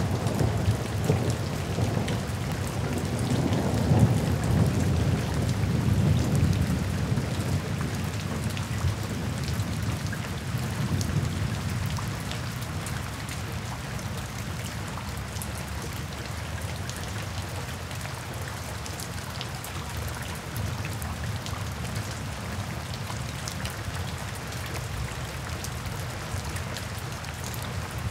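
Steady rain falling, with a long low roll of thunder that is loudest a few seconds in and fades away by about halfway, leaving only the even rain.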